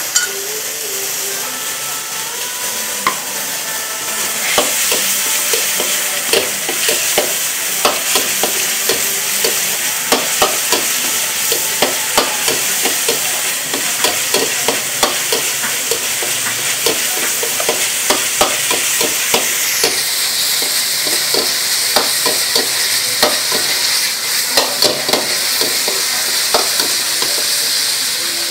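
Diced meat and sauce sizzling in hot oil in a wok, with a steady hiss, while a metal ladle stirs and scrapes it. The ladle clinks and scrapes against the wok over and over, starting a few seconds in.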